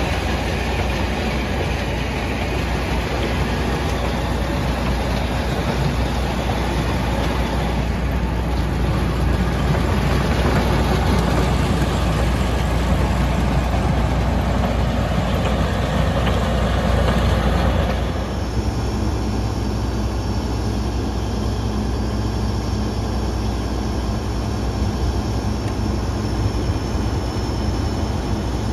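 John Deere combine running steadily. A rushing noise drops away about 18 seconds in, leaving a steady hum with a faint high whine.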